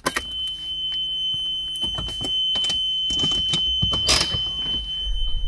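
A 1991 Nissan Figaro's 987cc turbocharged engine being cranked by the starter and not catching cleanly, under a steady high-pitched warning tone from the car. It is the car's hard-starting fault, still there despite a freshly cleaned mass airflow sensor.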